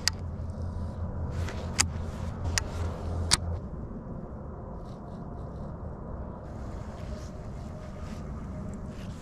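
Wind rumbling on a chest-mounted camera microphone, with four sharp clicks in the first few seconds. The rumble eases about three and a half seconds in.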